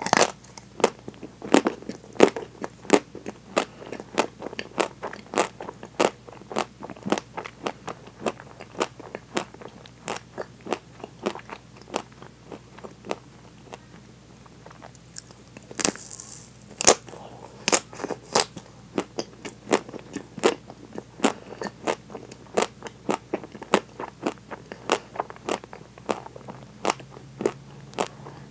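Close-miked biting and chewing of a frozen chocolate-coated ice cream bar with crunchy bits in its coating. The hard chocolate shell gives a steady run of sharp crackling, crunching snaps, two or three a second, with a short hiss about halfway through.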